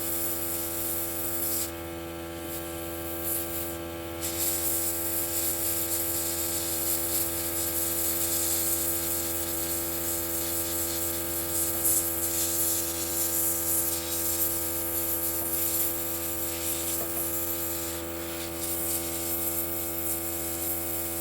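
Airbrush compressor running with a steady hum while the airbrush hisses, spraying paint. The hiss drops away briefly about two seconds in and again shortly before the end.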